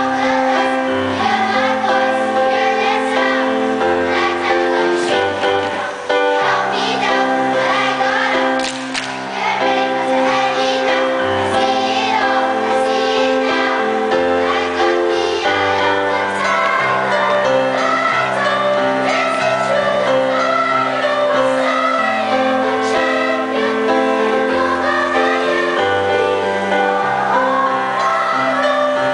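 Children's choir singing in unison over an instrumental accompaniment with steady sustained low notes.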